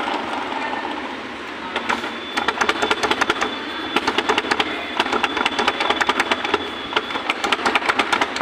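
Honda Activa 6G scooter giving a rapid mechanical ticking, about eight to ten ticks a second, over a steady running hum; the ticking starts about two seconds in.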